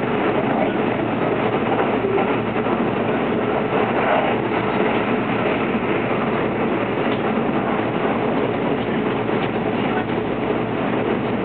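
Running noise of a Kintetsu 22600 series 'Ace' electric limited-express train, heard from inside the passenger car while it travels at speed: a steady, even rumble of the train on the rails.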